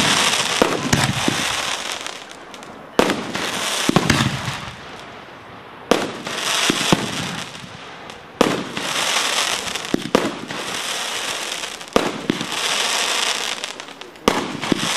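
Aerial fireworks shells bursting one after another, a sharp bang every second or two, each followed by a crackling hiss of sparkling stars.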